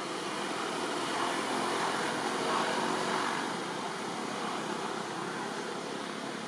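Steady rushing background noise with no distinct calls or knocks, swelling a little between about one and three seconds in.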